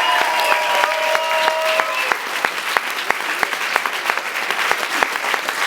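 Audience applauding, a dense clatter of clapping that thins to scattered separate claps after about two seconds.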